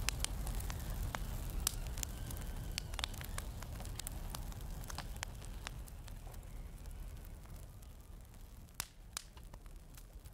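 Fire crackling: scattered sharp pops over a low rumble, fading out gradually.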